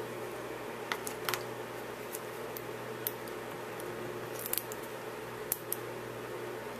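Small cardstock pieces being handled: about a dozen faint ticks and light rustles scattered through, over a steady low hum.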